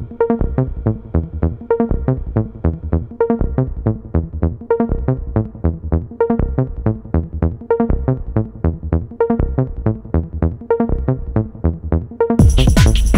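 Electronic background music with a steady beat; near the end it suddenly gets louder and fuller.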